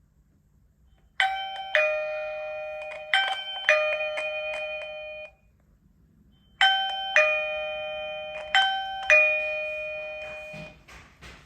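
Eufy wireless video doorbell chime ringing its electronic four-note tune twice. The first playing cuts off abruptly and starts again about a second later, and the second playing rings out and fades.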